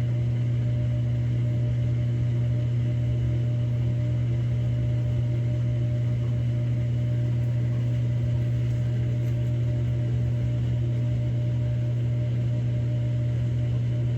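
Samsung Grande AI front-loading drum washing machine spinning at steady speed in a spin-only cycle: a constant low hum with no change in speed.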